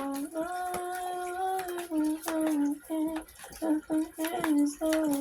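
A woman humming a song's melody without words: a long held note, then a run of shorter notes, with a few light clicks behind it.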